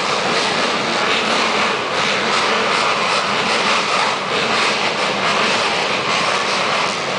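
A full gate of 450cc motocross bikes running together at the starting line before the gate drops, a loud, steady wall of engine noise in which no single bike stands out.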